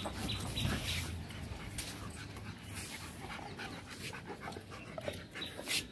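German Shepherd dog panting, an uneven run of short breaths.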